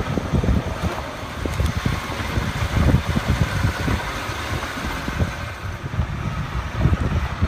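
Land Rover Discovery 3 driving slowly along a rough dirt bush track: an uneven low rumble of engine and tyres with many irregular thumps, picked up by a camera mounted on the outside of the vehicle.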